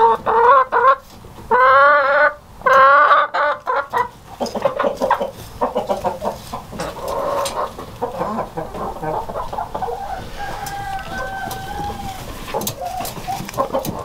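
Hen calling in a nest box: three loud, wavering squawks in the first few seconds, then softer, continuing clucks.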